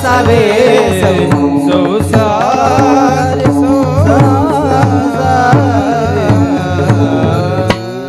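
Marathi Varkari devotional bhajan: men singing a melodic chant to a pakhawaj drum beat, harmonium, and the drone of a plucked veena, with small hand cymbals (taal) keeping time.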